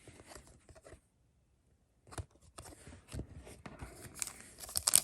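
Trading cards being handled and flipped through, rustling with small clicks and crinkling; the sound stops dead for about a second, then returns denser and grows louder toward the end.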